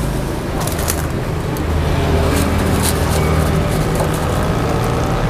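Puffed krupuk crackers crackling and crunching as they are broken by hand onto plates, with a few sharp crackles in the first three seconds, over a steady low mechanical hum.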